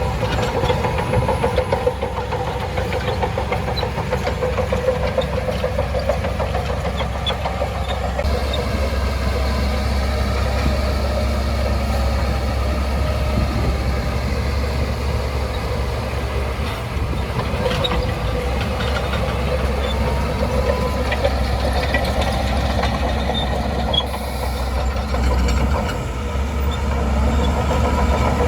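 Shantui DH17C2 bulldozer's diesel engine running steadily with a deep low drone, working the machine as it pushes.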